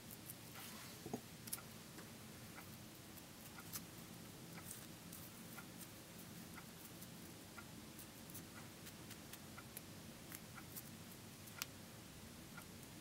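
Faint, irregular small clicks and rustles of fingers pinching and twisting a small piece of paper, over a low steady room hum.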